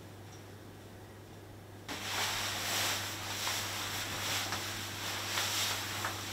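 Faint low hum of room tone, then about two seconds in a cloth starts rubbing across a bathroom mirror, a run of uneven wiping strokes.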